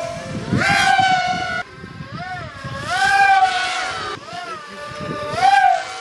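Several FPV racing quadcopters' electric motors whining as they fly past, the pitch swooping up and down with the throttle. The loudest passes come about a second in, around three seconds and near the end.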